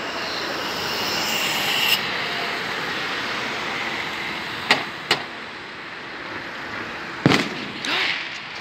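Firework bangs over steady road-traffic noise from a car passing: two sharp cracks about halfway through, then a louder, deeper bang near the end.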